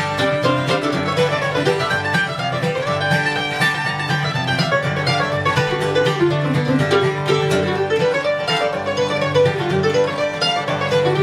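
Live acoustic bluegrass instrumental: an acoustic guitar and a mandolin picking a quick, steady tune together.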